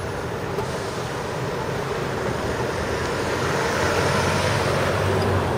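Steady city street noise, with a car driving past whose tyre and engine noise swells to its loudest about four to five seconds in.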